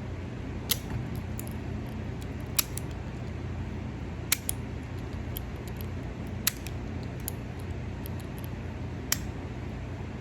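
Sharp metal clicks, five of them roughly two seconds apart, as vice grips work the over-tightened thumb-screw terminal nut of a Hertz ST25 horn tweeter loose, over a steady low hum.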